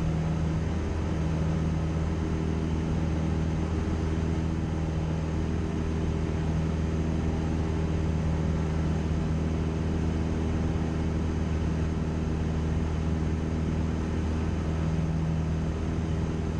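Cessna 172's piston engine and propeller droning steadily in level flight, heard inside the cabin, at an even, unchanging pitch.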